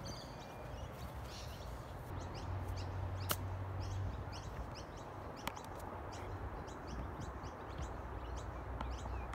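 Birds calling with many short, quick chirps over a low steady rumble. A single sharp click about three seconds in, with a fainter one a couple of seconds later.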